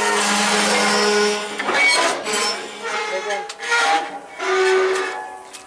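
Railwayman working the air-brake hose coupling between a locomotive and a wagon. A loud rushing hiss with a steady hum under it lasts for about the first two seconds, then metal clanks and scraping as the coupling is handled.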